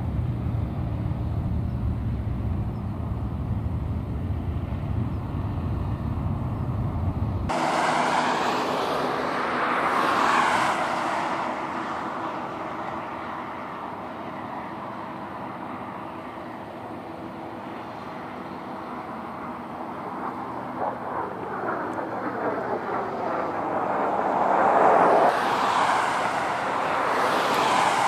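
Jet aircraft flying display passes overhead: the jet noise swells and fades with a sweeping, swirling hiss, loudest about ten seconds in and again near twenty-five seconds. A low rumble fills the first seven seconds and cuts off abruptly.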